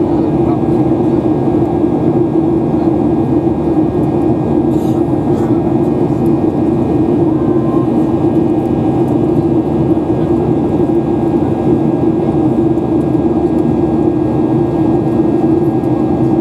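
Boeing 737-800's CFM56-7 jet engines running steadily, heard from inside the passenger cabin: an even rushing drone with a strong low hum.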